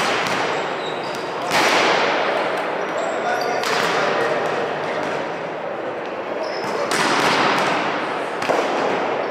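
Volleyball match crowd in an indoor sports hall, voices shouting and cheering in swells about a second and a half, two seconds and a half and seven seconds in, with thuds of the ball being struck or bounced.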